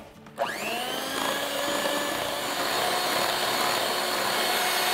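Electric hand mixer running at speed, its beaters whipping heavy cream and condensed milk in a glass bowl. The motor starts with a rising whine about half a second in, then runs steadily.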